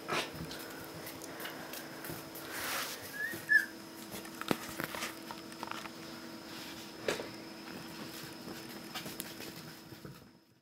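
Pembroke Welsh corgi puppy giving one short, high whimper about three and a half seconds in, over scattered small taps and clicks.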